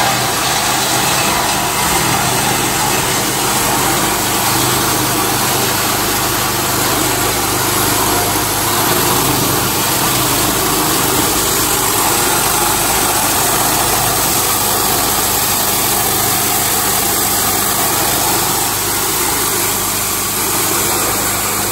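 Jinhengli PC 5065 plastic crusher (granulator) running steadily, with a loud, even noise and a faint low hum from its rotor and motor.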